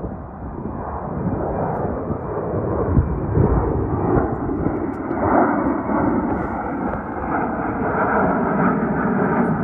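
Jet engines of an American Airlines Airbus A321-200 at takeoff power as it climbs out after departure: a deep, steady roar with a low rumble that grows a little louder.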